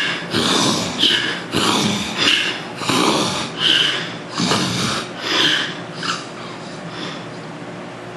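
A man snoring and snorting through his nose in sleep, a run of quick noisy breaths that slow and fade out about six seconds in. This is the kind of snoring that weight gain and nasal obstruction can cause.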